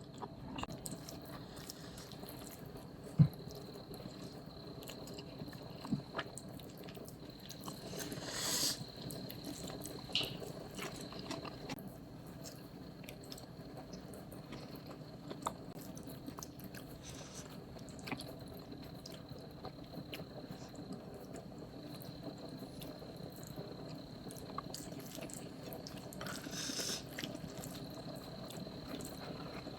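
Faint eating sounds: quiet chewing with scattered small clicks, one sharper tick about three seconds in and two brief rustles.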